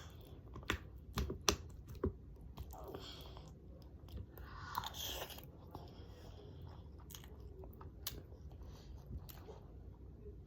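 Close-up eating sounds: chewing and biting mouthfuls of fried noodles, rice and chicken nuggets, with sharp clicks scattered through, most of them in the first two seconds.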